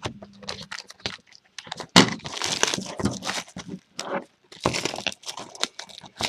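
Plastic shrink wrap crinkling and tearing as a sealed trading-card hobby box is unwrapped, a run of irregular crackles and rustles with a sharp loud crackle about two seconds in.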